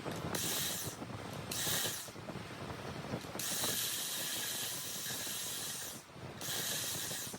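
Four bursts of hissing, like air or spray being blown, the longest lasting about two and a half seconds, with faint clicks between them.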